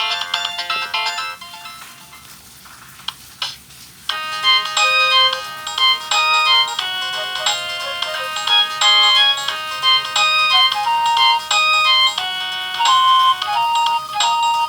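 Nokia ringtones played through a Samsung SGH-A157 flip phone's speaker. One melodic tune stops about a second in. After a short pause with two clicks, another ringtone melody starts about four seconds in and plays on.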